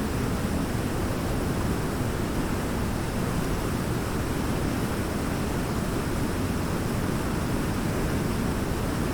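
Waterfall: water pouring and splashing in a steady, unbroken rush, heaviest in the low and middle range.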